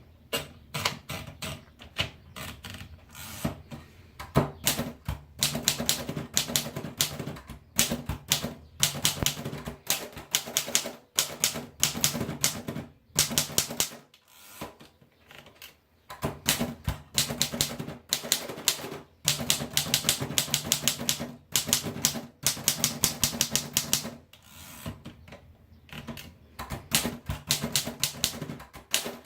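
Royal Portable typewriter being typed on: runs of rapid key strikes clacking against the platen, with a couple of short pauses between the runs.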